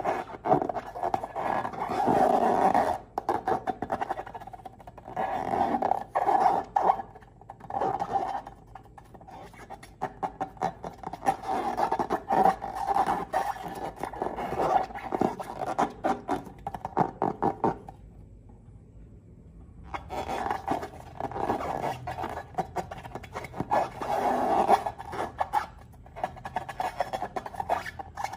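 Wet slime squelching and crackling in bursts as it is squeezed and worked out of balloons, with a pause about two-thirds of the way through.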